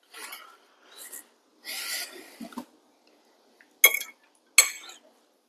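Eating at the table: a few breathy exhales, then a fork clinks twice against a plate, two sharp ringing clinks less than a second apart.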